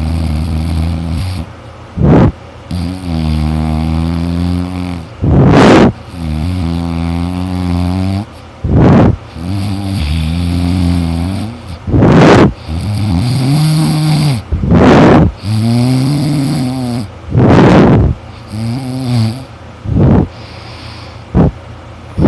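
A person snoring loudly. Short, harsh, noisy snorts come roughly every two to three seconds, and between them run longer humming, droning tones that waver in pitch.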